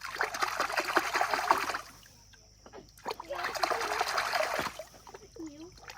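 Water splashing in two bursts of about a second and a half each, the second starting a little over three seconds in.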